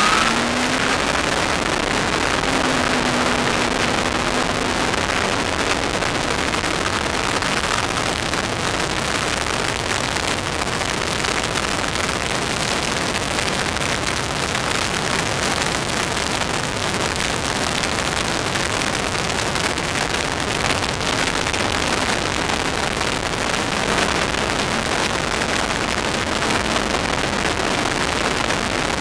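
Steady rush of wind and road noise on the in-car microphone of an open MK Indy R kit car at track speed. Under it, the Kawasaki ZX-10R inline-four engine is heard only faintly, its note rising in the first second and then holding for a few seconds.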